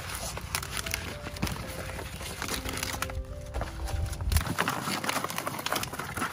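Irregular clicks and cracks, scattered through, over faint background music with held notes.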